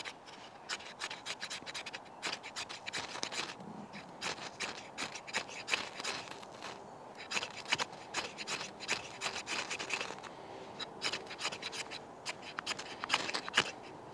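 Back of a steel knife blade scraped again and again down a ferrocerium fire steel to throw sparks into water-soaked fibre tinder: many short, sharp rasping strokes in quick clusters.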